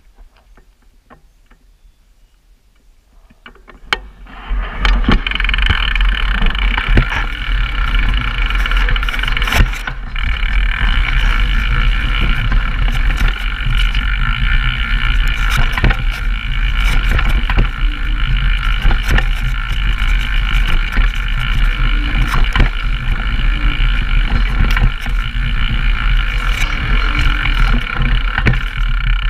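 Downhill mountain bike descending a rough trail, heard from cameras mounted on the rider or bike: quiet with a few light clicks at first, then from about four seconds in a loud steady rush of tyre and wind noise with frequent rattles and knocks from the bike.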